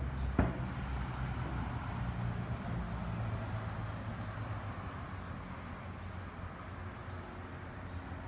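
Steady low hum of distant road traffic, with a single footstep knock on a wooden footbridge deck about half a second in.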